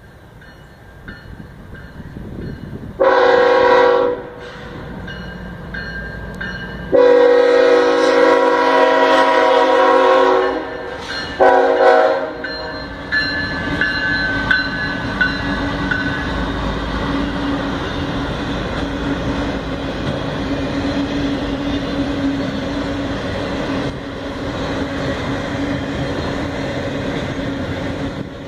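Air horn of a CSX GE ET44AH freight locomotive sounding for a grade crossing: a short blast about three seconds in, a long blast from about seven to ten seconds, and a short blast near twelve seconds. Then the locomotives and a long string of empty auto rack cars roll steadily past.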